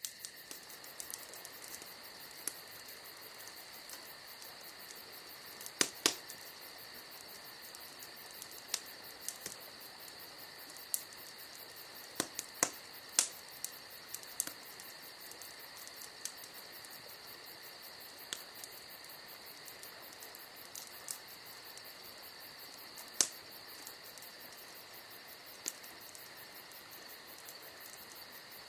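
Campfire logs crackling, with sharp pops: a loud pair about six seconds in, a cluster around twelve to thirteen seconds and another near twenty-three seconds. Underneath, crickets chirr steadily.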